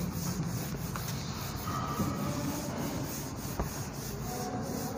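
Whiteboard duster rubbing across a whiteboard, wiping off marker writing, with a couple of light knocks.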